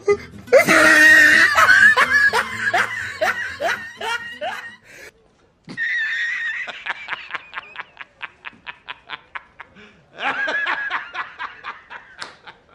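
Three stock laughter sound effects played one after another: a loud laughing burst, then a long laugh of quick, even pulses, then a shorter laugh near the end.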